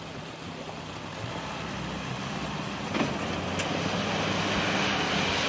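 Off-road 4x4 vehicle's engine running and building toward the end, with a growing rushing noise and two sharp knocks about three seconds in.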